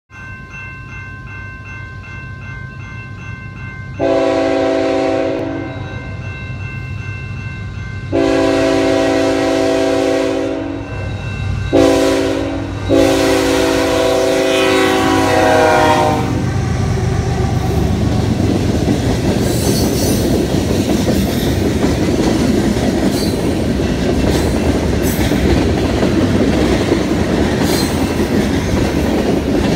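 A bell rings, then the horn of CN locomotive 3158 sounds the grade-crossing warning: long, long, short, long. The locomotive's diesel rumble swells as it passes, followed by a long freight train's cars rumbling and clacking over the rails, with sharp wheel clicks every few seconds.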